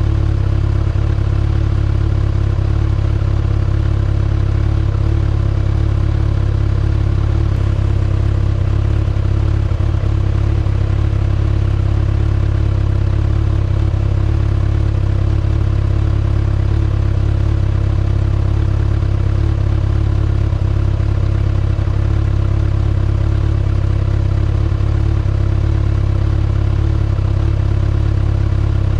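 A 2019 Kawasaki ZX-6R's inline-four engine on its stock exhaust, running steadily at constant revs without revving.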